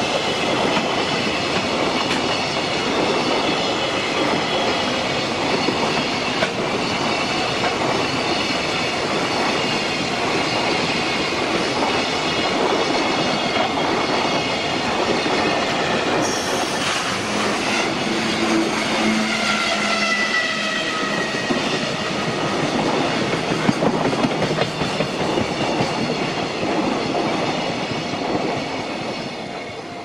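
A long container freight train rolling past close by, the wheels of its container flatcars running steadily over the rails, with the level crossing's warning bell ringing above it. The train noise dies away near the end as the last wagons pass.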